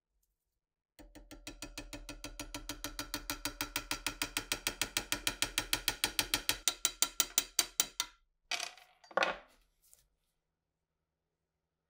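Fast, even taps on a wooden block driving a steel pin into a PTRD rifle's steel receiver, growing louder, with the metal ringing under the blows. The tapping stops, then two brief knocks follow.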